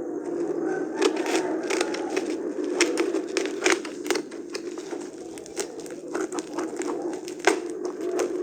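Packaging being handled and unwrapped: irregular crinkling and crackling with many sharp clicks, over a steady low hum.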